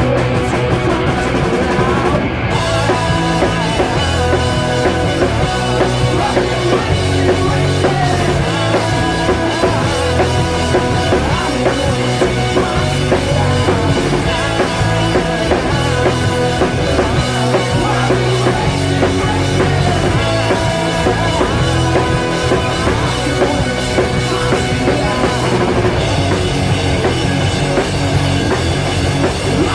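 Rock band playing a song live: guitar and bass over a drum kit, with the cymbals and high end coming in about two seconds in.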